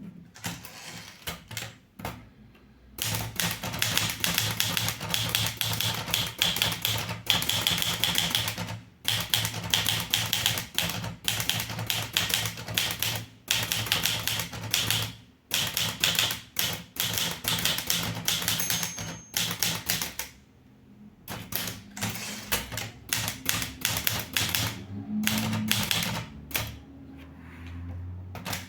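Underwood 315 portable manual typewriter being typed on: fast runs of key strikes broken by short pauses, then a brief stop and slower, sparser keystrokes in the last third.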